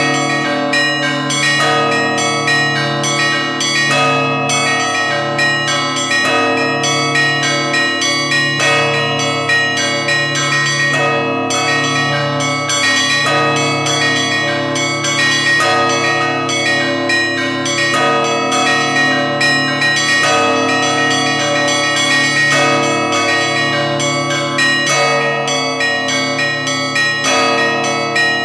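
Moscow Kremlin church bells ringing a continuous Russian Orthodox peal: many bells at once, smaller bells struck rapidly over deeper bells that sound about every two seconds.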